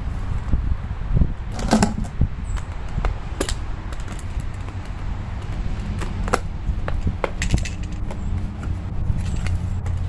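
Irregular scraping and clicking of a hand tool worked through potting soil along the inside wall of a plastic nursery pot, loosening the root ball. A steady low rumble runs underneath.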